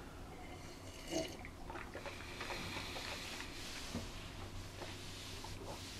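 Faint sounds of a man sipping coffee from a glass and tasting it: a short sip about a second in, then quiet mouth and breathing noises.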